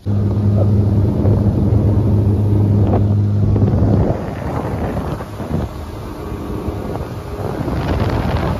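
Small skiff's outboard motor running at speed over flat water: a steady low drone with wind buffeting the microphone. About four seconds in, the engine note gives way to rushing wind and water noise.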